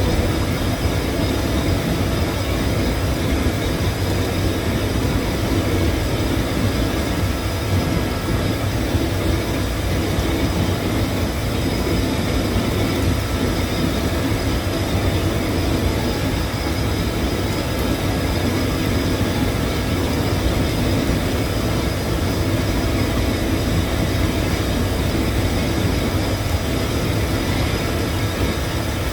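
Submerged-arc welding equipment running steadily on a drum shell: a continuous machine rumble with a faint steady hum through it, unbroken throughout.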